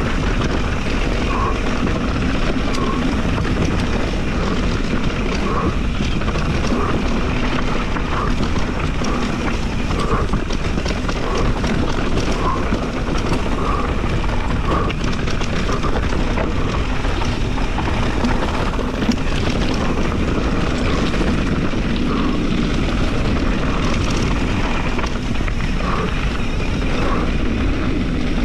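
Steady wind rush over the camera microphone mixed with the rolling noise of a mountain bike's tyres on dirt and loose gravel.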